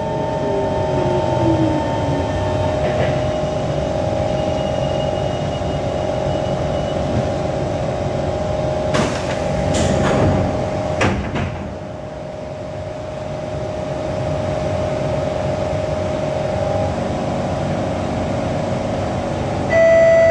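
Inside an SMRT C151 metro car: a steady electrical hum with a falling whine as the train slows to a stop. The passenger doors slide open with a rush of noise about nine to eleven seconds in, and near the end a louder door-closing chime begins.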